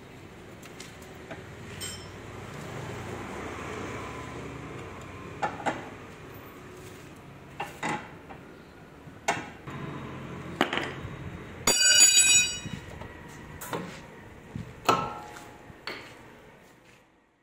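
Spanners and steel parts clinking and knocking against the car's front brake caliper and hub as it is unbolted, a dozen or so sharp clinks spread out, with a loud ringing metal clatter about twelve seconds in.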